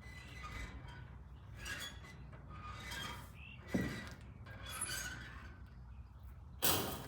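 Hand-handling noise: rustling and light clinks of small objects being moved and set down, with two sharper knocks, one a little under four seconds in and a louder one near the end.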